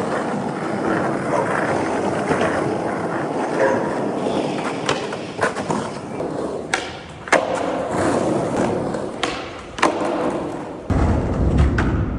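Skateboard wheels rolling on hard ground with a steady rumble. Several sharp clacks and thuds of the board come from about five seconds in, and the rumble turns heavier and deeper near the end.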